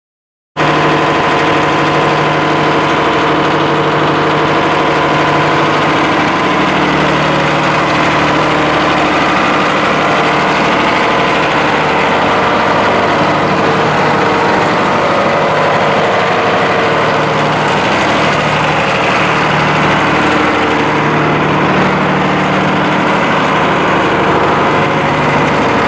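Caterpillar 3306 inline six-cylinder diesel engine of a 175 kVA generator set, running at a steady, unchanging speed.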